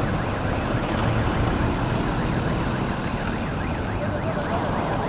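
Emergency-vehicle siren yelping, its pitch going up and down several times a second, heard through a steady, dense background rush.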